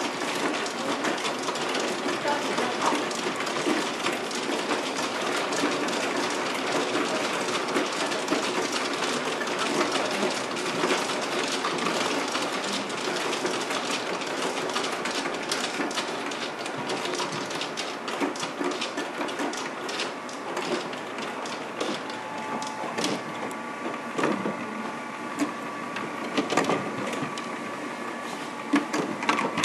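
Automatic mahjong table shuffling tiles inside its body: a steady mechanical clatter of tiles knocking together over a running motor. The clatter thins out over the last several seconds and a steady hum comes through.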